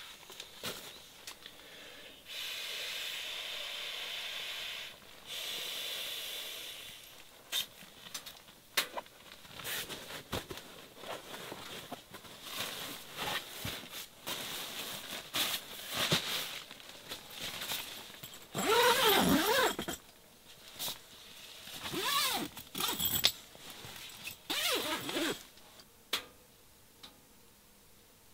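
Nylon camping gear rustling and scraping while a sleeping bag and pillow are handled and laid out on a cot, with two longer steady swishes in the first few seconds.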